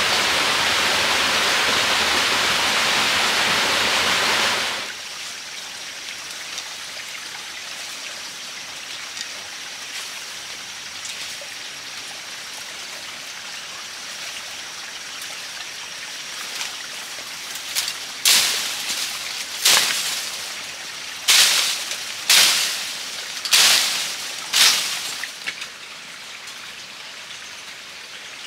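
Loud steady rush of running water that cuts off suddenly about five seconds in, leaving quieter forest background with a faint steady high tone. Later come about six sharp, loud noisy hits, roughly one and a half seconds apart.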